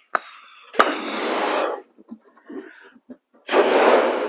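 A balloon being blown up by mouth: two long, hard breaths blown into it, the first lasting over a second and a half and the second starting about three and a half seconds in, with a short pause between them to breathe in.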